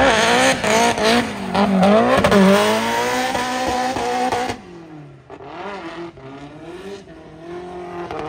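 Drift car engine revving up and down repeatedly as the car slides through the corners, with tyre squeal over it. About four and a half seconds in the sound drops suddenly and the engine carries on fainter and more distant.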